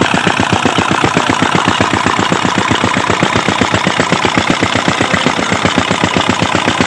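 A 16-horsepower Petter diesel engine runs steadily with a rapid, even chugging of about eight beats a second as it belt-drives a small tubewell pump.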